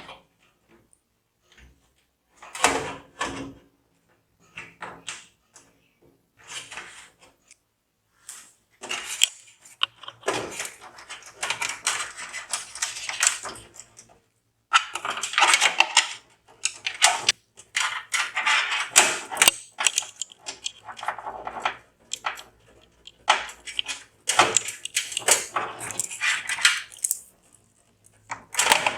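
Hands handling computer parts: irregular bursts of clicking, rattling and rustling with short silent gaps between them.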